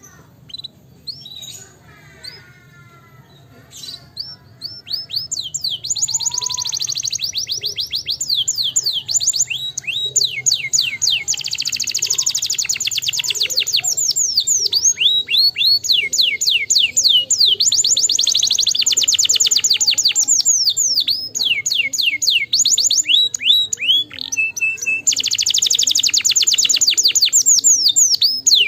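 Domestic canary singing: a few scattered high notes at first, then a long song of fast rolling trills from about five seconds in, runs of rapidly repeated sweeping notes broken by short pauses and changes of phrase.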